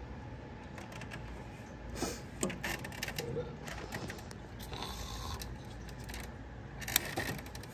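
Light metallic clicks and scrapes from cable-operated hose clamp pliers being worked onto a spring hose clamp, with sharp clicks about two seconds in and again near the end, over a low background hum.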